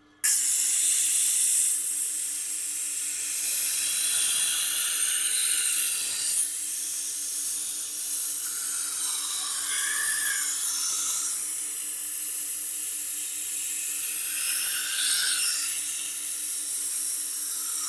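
Steel knife blade (a Victorinox) being ground on a powered sharpening wheel at the 320-grit stage: a steady, high hissing grind of metal on abrasive that starts abruptly and cuts off near the end.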